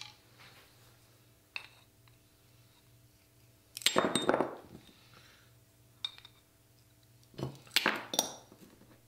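Tile nippers biting through a ceramic wall tile: two bursts of sharp cracks and crunches about four seconds apart as the tile snaps, with a few small clinks of tile pieces between.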